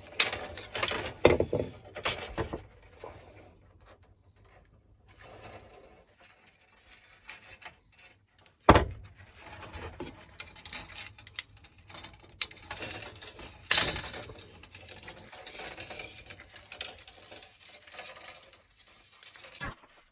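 Irregular clicks, scrapes and metallic knocks of hand work on a lawnmower's pull-cord recoil starter while its spring is refitted, with a sharp knock about nine seconds in and another near fourteen.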